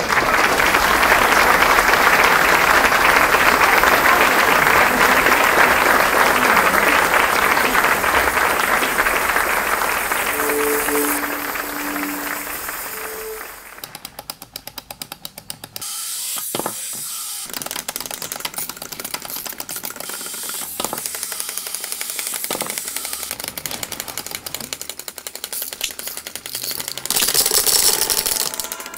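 Audience applauding for about thirteen seconds, fading out. Then the rapid, dense clicking of wind-up toys' clockwork as they walk and peck, with a brief louder rush of noise near the end.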